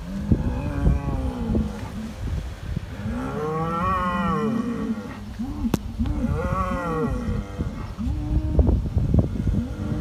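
Hereford bull bellowing: a string of low, short moans broken by two long, higher-pitched bellows that rise and fall, about three and six seconds in.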